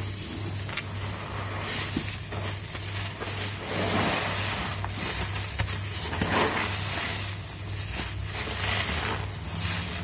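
Soap-soaked foam sponges, cut from mattress foam, being squeezed by gloved hands in a sink full of thick suds. The wet squelching and crackling of the foam swells about every two seconds over a steady low hum.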